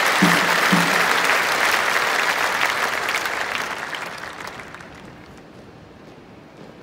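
Large arena audience applauding, the applause dying away over about five seconds. Two short low tones about half a second apart sound under it near the start.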